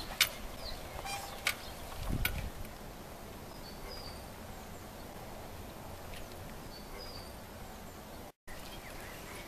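Steady outdoor background hiss with a few faint, short bird chirps. A handful of sharp clicks come in the first two seconds, the strongest with a low thump about two seconds in, and the sound cuts out for a moment near the end.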